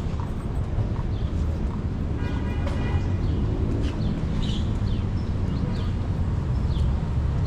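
City street background: a steady low rumble, with small birds giving short high chirps from about four seconds in.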